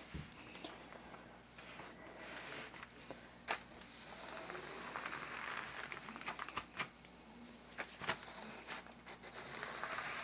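Faint scratchy swishing of a stiff stria brush dragged through wet glaze on a floor cloth, with scattered light clicks and taps. There are two longer swishes, one in the middle and one near the end as the brush is pulled.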